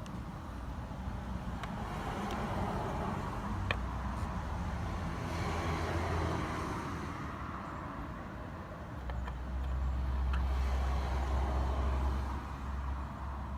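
Road traffic noise, a low rumble that swells twice as vehicles pass, with a few faint clicks.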